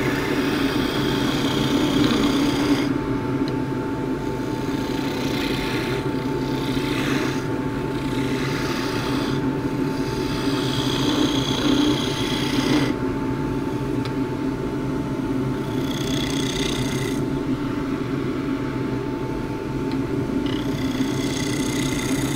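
Wood lathe running steadily while a 1-inch skew chisel cuts a spinning juniper spindle, the hiss of each cut coming and going in about five passes.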